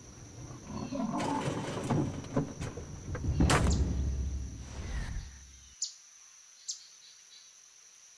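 Trapped leopard growling in a wire cage trap, with a single sharp crack about three and a half seconds in as the tranquilizer dart gun fires. The growl stops abruptly about two seconds later, leaving a quiet stretch with two short, high falling chirps.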